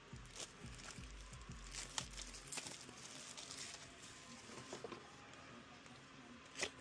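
Packaging being handled during an unboxing: rustling and crinkling with scattered light clicks and taps, and a sharper click about two seconds in and another near the end.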